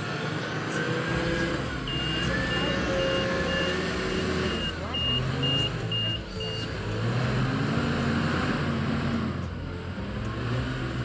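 Heavy-equipment diesel engine running and changing pitch under load, with a reversing alarm beeping about twice a second from about two seconds in, for nearly five seconds.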